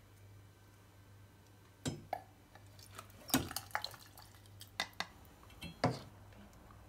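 Ladle knocking and clinking against the side of a stainless steel pot as chicken soup is scooped out, with broth dripping and splashing back into the pot. There are about nine sharp knocks, bunched between about two and six seconds in.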